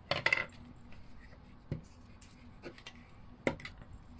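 Hands handling painted paper cut-outs and scissors: a short paper rustle at the start, then a few scattered light clicks and taps.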